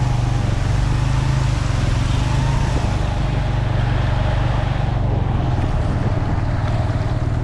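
Suzuki GS150 motorcycle's single-cylinder four-stroke engine running steadily while riding, under a steady rushing hiss whose upper part eases off over the last couple of seconds.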